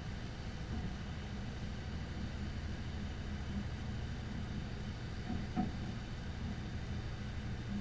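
Engine running steadily at a constant pitch, with a short clank about five and a half seconds in.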